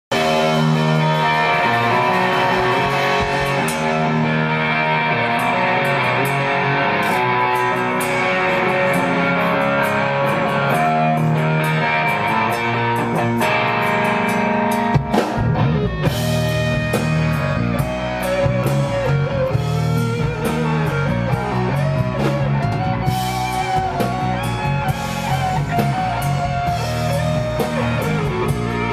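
Live rock band playing on electric guitars and drum kit, with drum and cymbal hits growing more frequent from about halfway through.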